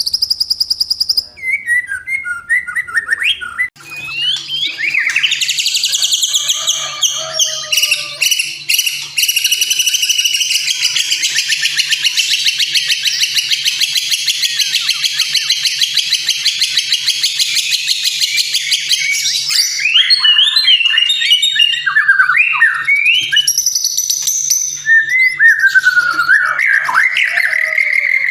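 White-rumped shama (murai batu) song: varied whistled phrases and glides, then a long, rapid, dense chattering trill from a few seconds in until about two-thirds through, then varied whistles again. A faint low hum runs underneath.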